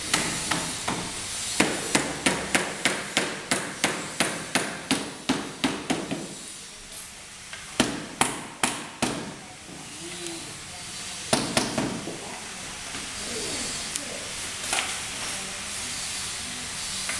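Hammer striking the bamboo frame of a tiki bar: a fast even run of about a dozen blows, roughly three a second, then four more after a short pause and a last couple a few seconds later.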